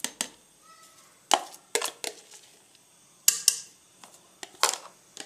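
Metal spoon knocking and scraping against a steel cooking pot and a bowl as shredded chicken is tipped into the soup: a handful of sharp clinks and knocks in small clusters about a second apart.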